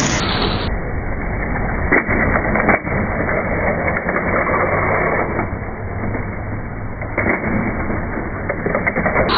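Tamiya mini 4WD cars running along a plastic race track: a steady, muffled rattle of wheels and rollers on the lanes, with a few sharp clacks as the cars strike the track walls and joints.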